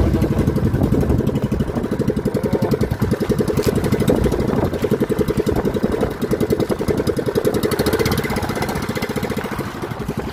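Small boat engine running steadily with a fast, even pulse.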